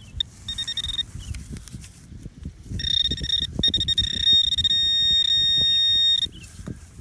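Garrett handheld pinpointer probing a dig hole: a high-pitched electronic tone sounds briefly, then from about three seconds in sounds again and settles into a continuous tone that cuts off about a second before the end. The tone means the probe is right on the buried target. Scraping and rustling of soil and grass go on underneath.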